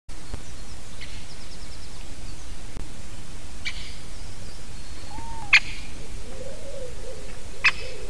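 A woodpecker calling: short, sharp single calls about every two seconds, the one in the middle loudest. A low, wavering call sounds underneath in the last couple of seconds.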